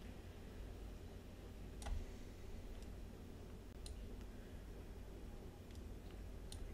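Computer mouse clicking: about half a dozen scattered, separate clicks, the loudest about two seconds in, over a steady low hum.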